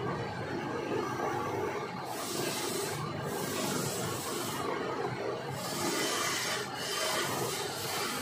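Wooden swing leg spinning on a wood lathe while it is hand-sanded: a steady rubbing hiss over the lathe's running, swelling brighter several times as the hand presses along the turning.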